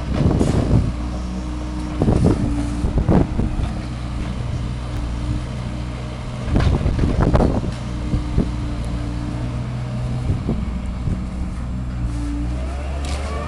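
Excavator's diesel engine running steadily, with several loud bursts of scraping and knocking from its work, the biggest near the start, around 2 to 3 seconds in and around 7 seconds in.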